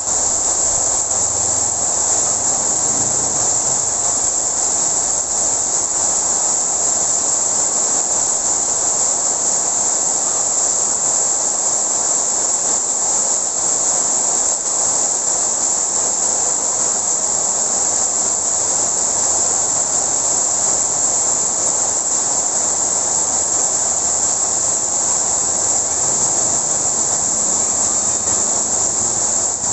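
Heavy rain falling steadily, a loud unbroken hiss of a downpour.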